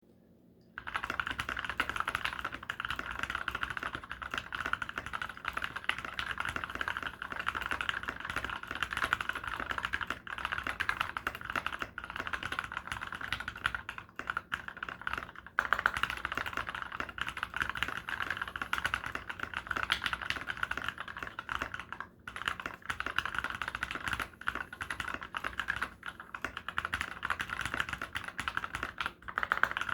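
Fast continuous typing on a GK64 mechanical keyboard with lubed Milky Gateron Yellow linear switches, TX films and MT3 keycaps, the case dampened with neoprene. Typing starts about a second in, with brief pauses twice.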